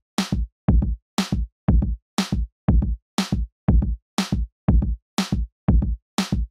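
Electronic drum-machine beat at about two hits a second: a kick drum on every beat and a sharp clap or snare on every second one, each hit cut off short with silence in between.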